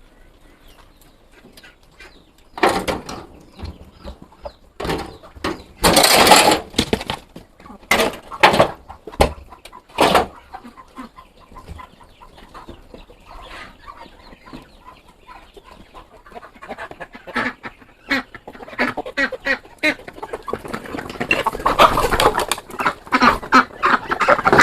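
Chickens clucking, mixed with short sharp knocks and rustles, with a loud burst about six seconds in and busier, denser activity near the end.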